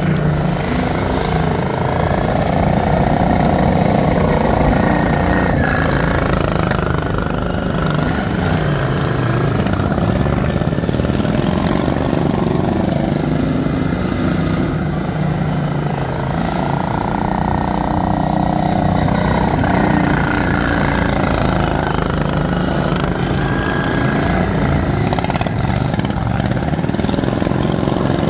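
Several racing lawn tractors' small engines running hard, overlapping, their pitch rising and falling as they accelerate and pass.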